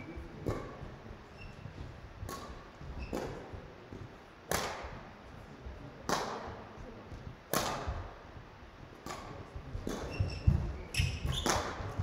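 Badminton rally in a sports hall: sharp racket hits on the shuttlecock about every one to one and a half seconds, each echoing in the hall. Short squeaks of court shoes and heavier footfalls come in near the end.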